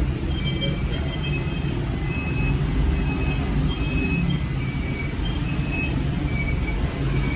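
Steady low background rumble with short high-pitched tones, about two a second, scattered through it.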